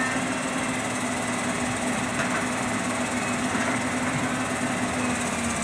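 Hitachi EX200-1 hydraulic excavator's diesel engine running steadily under working load with a constant low hum, as the machine dumps a bucket of soil into a dump truck.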